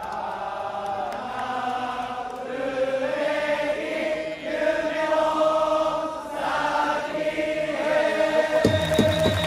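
A large crowd of Orix Buffaloes supporters singing a cheer song together in unison, unaccompanied. Near the end, trumpets and a drum come back in.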